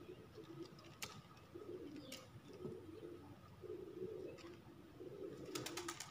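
A dove cooing faintly in repeated low phrases, with a few sharp clicks and a quick run of clicks near the end.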